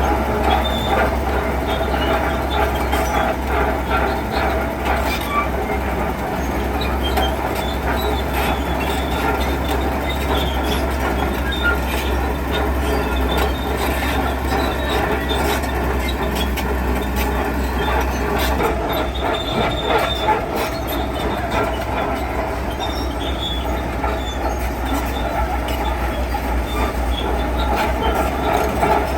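Diesel tracked earthmover running steadily under load, its steel tracks squealing and clanking, with scattered metallic knocks.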